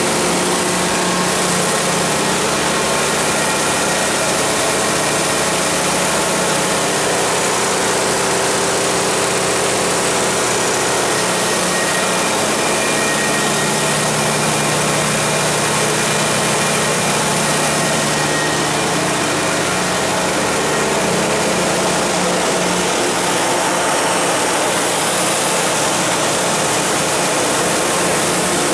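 Cummins 100 kW natural gas generator set's Ford WSG-1068 V10 engine running steadily at its governed 1800 rpm, under a load of about 98 kW from a load bank.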